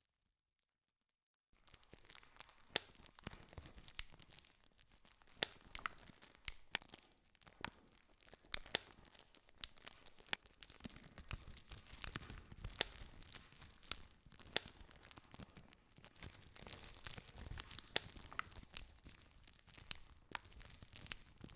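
Campfire crackling: frequent sharp pops and snaps of burning wood over a soft hiss. It begins suddenly about a second and a half in, after dead silence.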